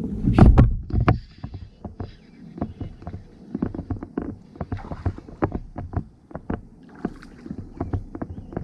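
Irregular knocks and clunks of gear and a plastic fishing kayak being handled, with one heavy low thump about half a second in and a second about a second in.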